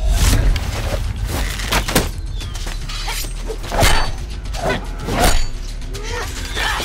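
Loud film soundtrack: a steady low rumble under a quick run of hard hits and crashes, with music mixed in. It starts abruptly at a cut.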